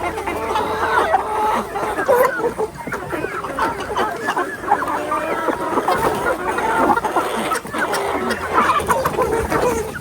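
A flock of chickens clucking and calling over one another, many birds at once.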